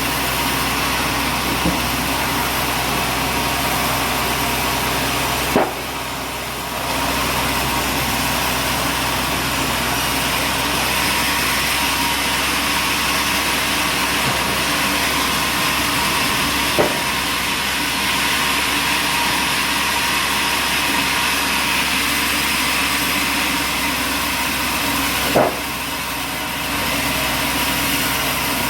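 Machinery running steadily, with a short click about three times and a brief drop in level after two of them.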